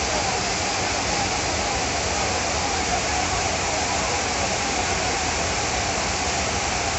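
Floodwater rushing fast through a street: a steady, unbroken noise of churning water.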